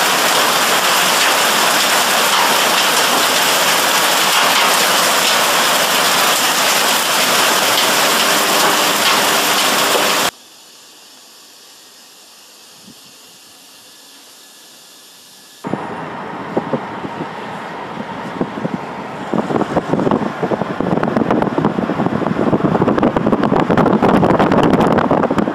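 Hailstones pelting down on a lawn and paving in a heavy, steady hiss for about ten seconds, cut off suddenly to a much quieter background. Then gusty wind buffets the microphone, growing louder near the end.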